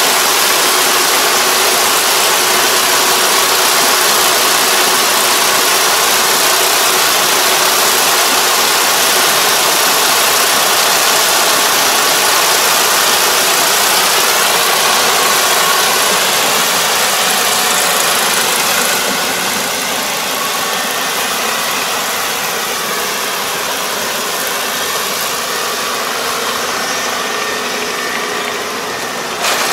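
Rice combine harvester running under load as it cuts and threshes: a loud, steady mechanical drone with a dense whirring hiss over it, a little quieter from about two-thirds through.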